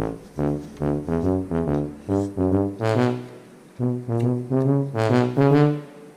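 Background music: a melody of short, separate pitched notes in a bouncy rhythm.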